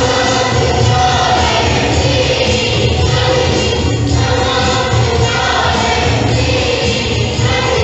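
A choir singing a church hymn with musical accompaniment.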